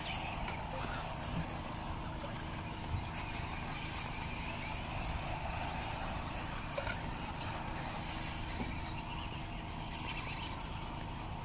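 Radio-controlled off-road buggies running round the track: a faint, wavering motor whine over a steady low rumble, with a few small clicks.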